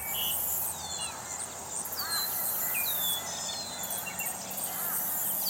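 Outdoor ambience of birds and insects. Several birds call, with short downward-sliding whistles repeated every second or so and arched chirps, over a steady high-pitched insect buzz.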